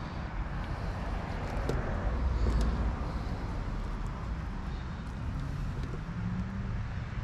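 Steady low outdoor rumble that swells about two seconds in and then eases, with a few faint clicks over it.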